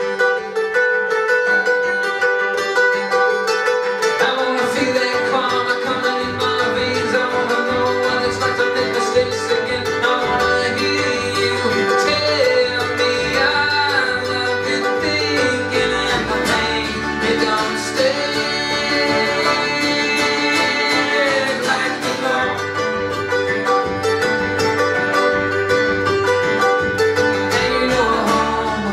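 Live acoustic string band playing, with banjo, acoustic guitar, upright bass and fiddle. A deep bass line comes in about four seconds in.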